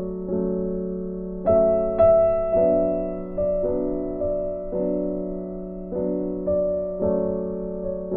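Slow piano-style keyboard music: held chords, a new one struck about every second and dying away before the next.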